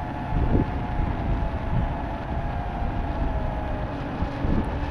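Wind buffeting the microphone: a continuous uneven low rumble. A faint thin whine sits above it, slowly dropping in pitch.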